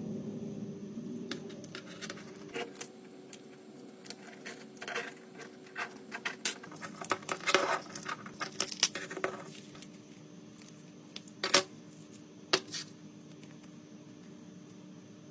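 Small metal tools and phone parts clicking and clinking on a work surface in quick irregular taps, with two louder clicks near the end, over a faint steady hum.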